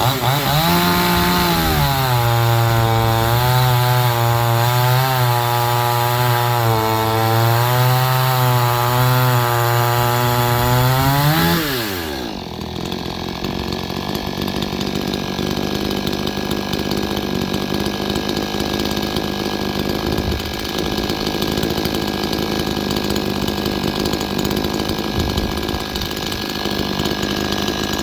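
Brand-new Proyama PCS50 chainsaw's 49.3cc two-stroke engine running near full throttle with its pitch sagging and recovering, then about twelve seconds in the throttle is let off and the pitch falls quickly to a steady, quieter idle.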